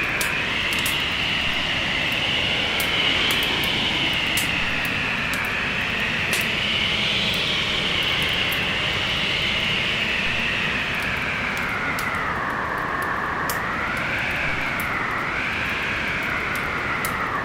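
Storm wind howling, its pitch slowly rising and falling, with sparse small crackles of a wood fire over it.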